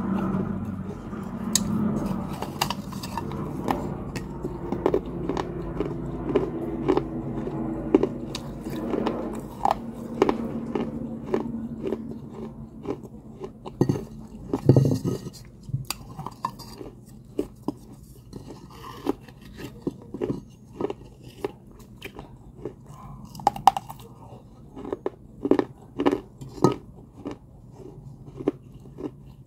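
Fired terracotta clay pot being bitten and chewed: many sharp, separate crunches and crackles of baked clay breaking between the teeth, the loudest bite about halfway through.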